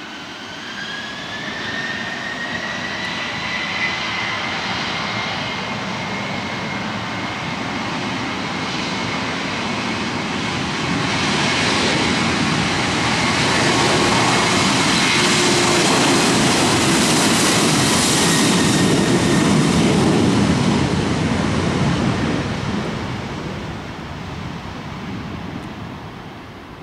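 Boeing 737-800 CFM56 jet engines spooling up with a rising whine, then running at takeoff thrust on the takeoff roll. The sound grows louder as the plane passes, is loudest a little past the middle, and fades near the end.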